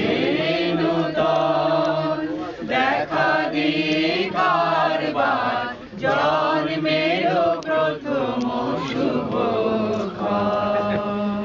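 A mixed group of men and women singing a song together in chorus, with long held notes.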